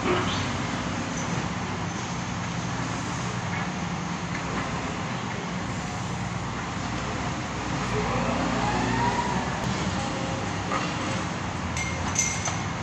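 Diesel engine of a Liebherr wheeled excavator running steadily, mixed with the rumble of passing road traffic. About eight seconds in, a tone rises in pitch.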